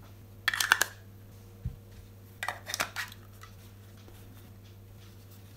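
Camera lens and macro extension tubes being handled and set down on a cloth: two short flurries of clicks and light clatter, about half a second and two and a half seconds in, with a soft thump between them.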